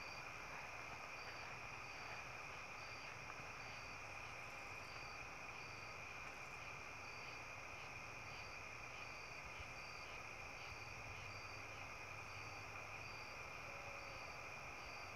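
Night insects, faint: crickets keep up a steady high trill, with a second insect making short high chirps about once a second.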